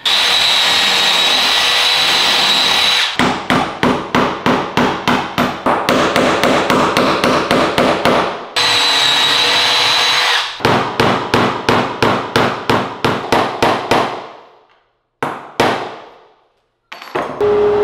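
A cordless drill runs steadily with a high whine as it pre-drills angled pilot holes in hardwood floor strips, then a hammer drives the nails in with quick, even blows, about four a second. The sequence repeats: another short drill run, another run of blows ending in a few single taps. Near the end a table saw starts up with a steady hum.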